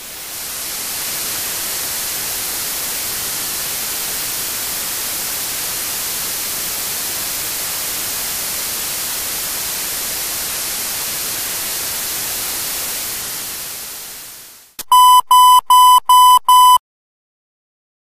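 A steady hiss of noise fades in, holds, and fades away. Then, near the end, a Morse code practice tone sends five even dahs: the digit 0.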